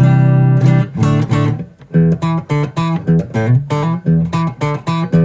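Vintage Gibson Les Paul Signature electric guitar played with its pickups switched out of phase: one strummed chord ringing for about a second, then a run of short, choppy chords at about two to three a second.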